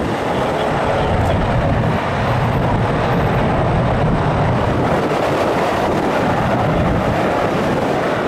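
CF-18 Hornet's twin General Electric F404 jet engines at full power with afterburners lit as it starts its takeoff roll: a loud, steady roar that grows a little louder about two seconds in.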